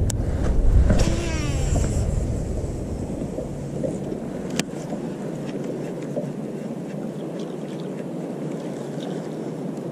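A fishing cast: line whirring off the reel about a second in, falling in pitch, over a low wind rumble on the microphone that eases off about halfway.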